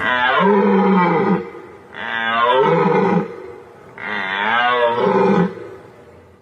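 White-tailed deer calling three times, about two seconds apart; each call is loud and pitched, about a second and a half long, bending in pitch.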